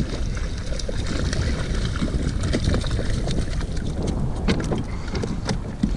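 Wind buffeting the microphone over water splashing as a small hooked kahawai thrashes at the surface and is lifted out, with scattered sharp clicks and taps throughout.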